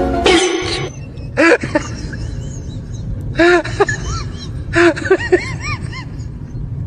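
A few notes of music at the start, then several quick runs of short rising-and-falling chirping calls, an animal's voice.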